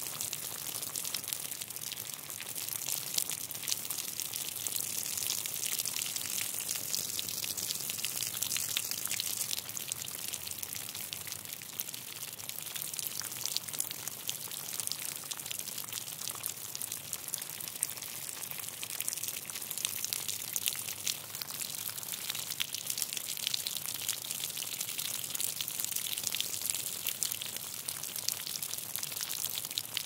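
Steady rain falling: a dense, even patter of countless small drop hits with a bright hiss.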